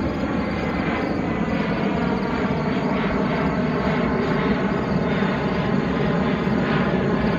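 Twin-engine jet airliner heard from the ground as it flies overhead and away: a steady low rumble of jet engine noise with a faint whine above it.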